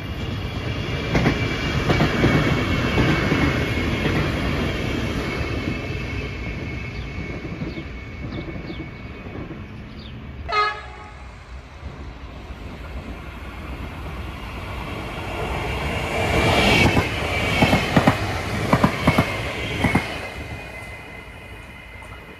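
Trains passing on the main line, the rumble of wheels on rail swelling twice, with a steady high-pitched ringing over it. A brief horn toot comes about halfway through, and near the end a quick run of wheel clacks over rail joints.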